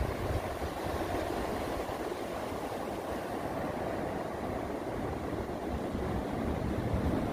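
Ocean surf washing onto a sandy beach as a steady rush, with wind rumbling on the microphone.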